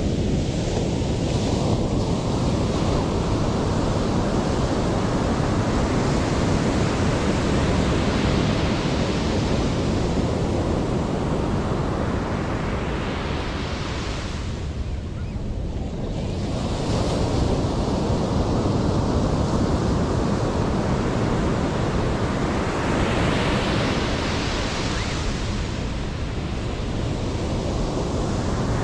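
Ocean surf: waves breaking and washing in as a continuous rush, with two swells of a louder, hissier wash about ten seconds apart and a short lull between them.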